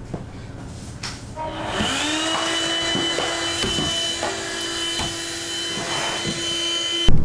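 An electric motor starts about one and a half seconds in, winds up to a steady whine with a few clicks along the way, and cuts off suddenly near the end.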